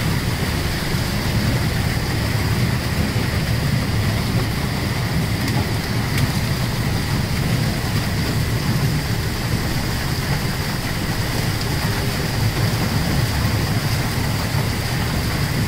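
Steady din of a fishing vessel's fish-handling gear: a low rumble and a constant high whine over the hiss of running water as a mass of herring is sluiced down a chute.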